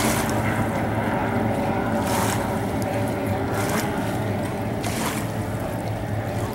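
Steady engine drone of several stock outboard racing boats running at speed across the lake, with a few brief noisy bursts on top.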